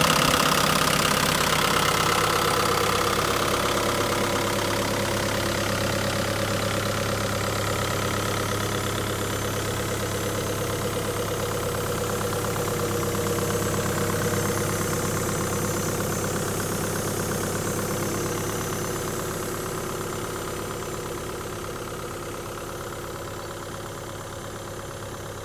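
Caterpillar 305.5E mini excavator's diesel engine idling steadily with its hood open, growing gradually fainter over the second half.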